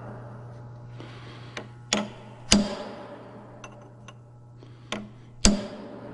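Hammer blows on a chisel set against the steel crankshaft wear sleeve of a Detroit Diesel Series 60 engine: sharp metallic strikes, ringing briefly, in two pairs about half a second apart with lighter taps between. The chisel pinches and stretches the sleeve so that it will slide off the crankshaft.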